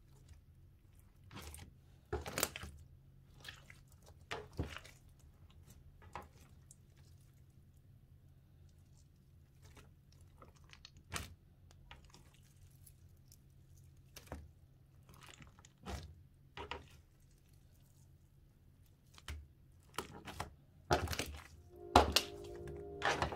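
Soft, sprinkle-filled slime being squeezed and poked by hand, giving scattered small pops and squelches at irregular intervals, a few louder than the rest.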